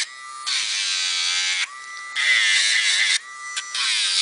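A small handheld rotary nail grinder with a sanding drum, whining steadily and grinding down a dog's nails in three bursts, each starting loud and dropping back to the quieter motor whine as the drum is lifted off the nail.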